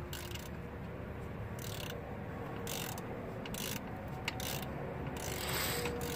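Socket ratchet wrench clicking in about six short bursts as it is worked back and forth to loosen a car's oil drain plug during an oil change.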